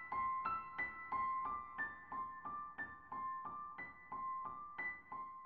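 Background music: a keyboard plays a steady run of short, bright notes, about three a second.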